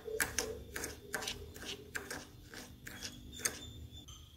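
Steel spoon stirring dry tea powder and sugar in a bowl: gritty scrapes and clicks of the spoon against the bowl, about three or four strokes a second, thinning out near the end.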